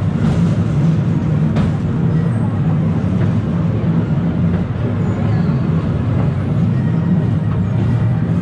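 Steady rumble and rattle of a Scenic Railway carriage moving along its rails, heard from inside the open-sided carriage.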